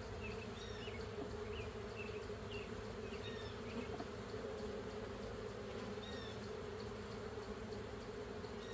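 Honeybees buzzing in a steady drone around an opened hive. Short high chirps come and go over it, mostly in the first few seconds.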